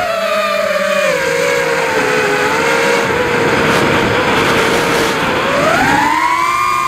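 Brushless motors and propellers of a Realacc XS220 racing quadcopter on Racerstar Labs 28A ESCs whining, picked up by its onboard camera with wind noise. The pitch eases down and holds, then rises steeply about five seconds in as the throttle is pushed up, and stays high.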